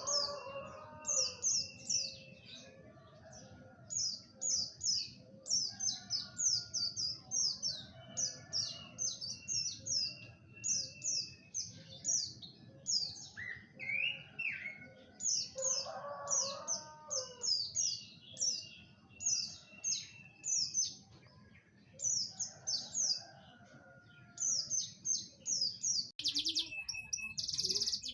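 A small songbird chirping: quick, high, falling notes in clusters of three to five, repeated with short pauses. Near the end it breaks into a fast, dense trill.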